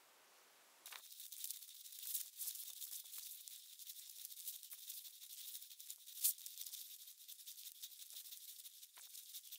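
Rustling and crackling of brush, twigs and fallen leaves as someone moves through forest undergrowth: a dense, thin crackle that starts abruptly about a second in, with one sharper snap about two-thirds of the way through.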